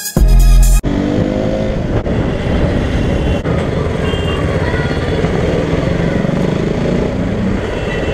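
Music with a heavy beat that cuts off less than a second in. It gives way to onboard riding sound from a KTM Duke motorcycle: the single-cylinder engine running at steady road speed under heavy wind and road noise.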